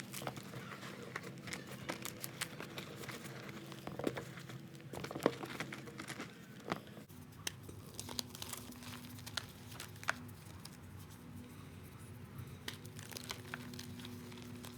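Balls of reformed gym chalk being crushed, giving irregular dry crunches and crumbling crackles that are dense at first and thin out to scattered cracks about halfway through.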